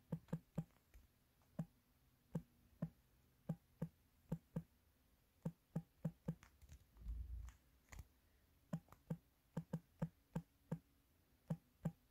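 Light fingertip taps on a smartphone touchscreen as a username and password are typed, an irregular run of faint clicks about two a second. A soft low thump a little past the middle.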